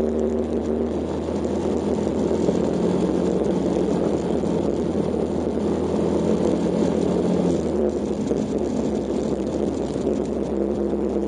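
Kawasaki KLX125's single-cylinder four-stroke engine running steadily while the bike rides over a gravel track, its note mixed with a dense rumble of tyre and wind noise. The engine tone changes about eight seconds in.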